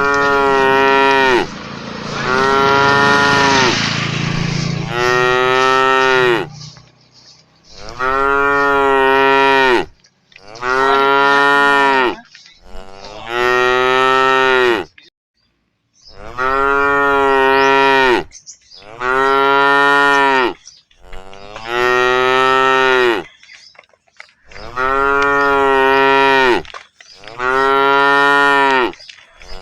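Cattle mooing over and over: about a dozen long, drawn-out moos, one every two to three seconds.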